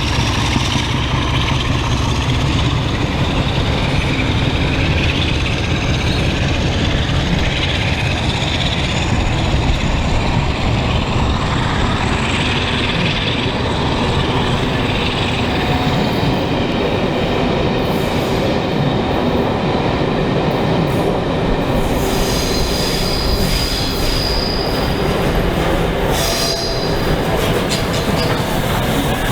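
Railway train rolling along the track: a steady rumble of wheels and carriages, with high-pitched wheel squeal in the later part.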